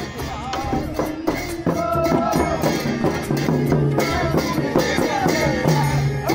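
Brass hand cymbals clashing over a stick-beaten drum in a steady folk rhythm, with men's voices singing and calling over the percussion.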